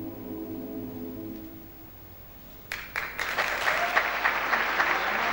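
A mixed choir holds a final chord that fades away over about two seconds. After a short hush, the audience starts applauding about two and a half seconds in, and the applause grows louder.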